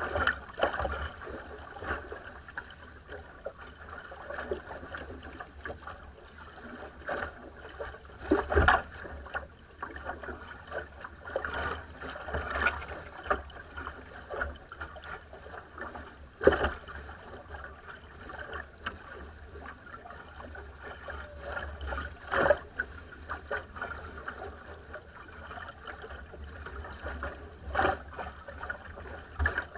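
Water rushing and splashing along the hull of a small wooden sailing dinghy under way, with louder slaps of spray several times as the bow meets waves.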